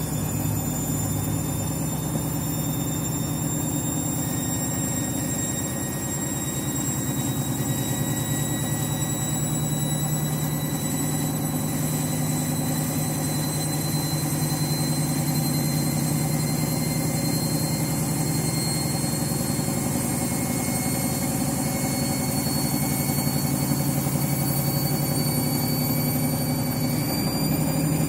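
Washing machine on its final spin, very noisy: the drum spinning fast with a steady low hum and a high motor whine that rises slowly as it gains speed, stepping up slightly near the end.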